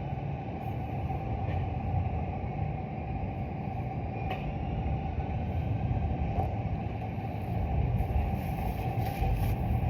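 Steady low rumble of a motor vehicle, with no clear events in it.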